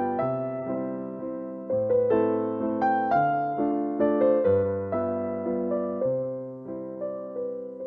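Background piano music: gentle, evenly paced notes and chords, each struck and left to fade.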